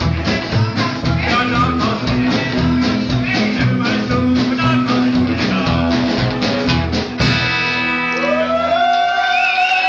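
Rockabilly band playing with guitar and singing over a driving beat. About seven seconds in the beat stops and a final chord rings on with a wavering, rising note above it, ending the song.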